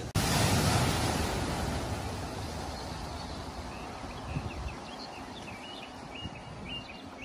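Floodwater rushing across a flooded road ford, with wind buffeting the microphone. The rush is loudest at the start and eases off, and a run of short high chirps sounds in the second half.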